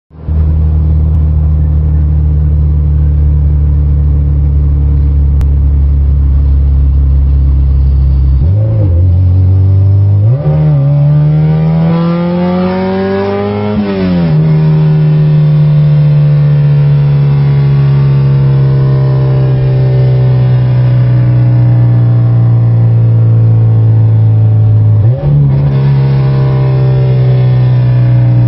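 Honda H-series four-cylinder engine in a Civic, running on an open header with no exhaust connected, heard from inside the cabin while driving. The revs step up twice, climb for about three seconds, then drop sharply at a gear change and hold steady, stepping up again near the end.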